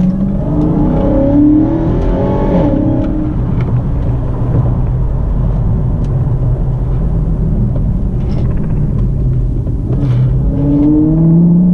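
Supercharged 6.2-litre HEMI V8 of a Dodge Charger Hellcat heard from inside the cabin while driving, the engine note rising under acceleration in the first few seconds and again near the end, with steady road rumble between.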